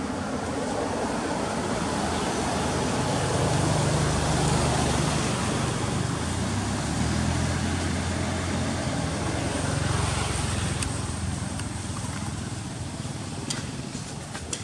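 Motor vehicle engine rumble that swells over several seconds and fades away again, like traffic passing, with a few faint clicks near the end.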